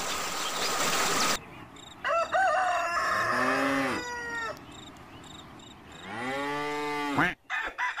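A series of chicken and rooster calls: short clucks, then drawn-out crowing, the longest call about six seconds in. A noisy background cuts off abruptly after about a second and a half.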